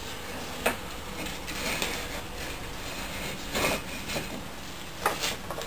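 A split half of a bamboo culm being handled on a wooden workbench: a sharp knock under a second in, a couple of longer scuffs against the bench in the middle, and two quick knocks near the end.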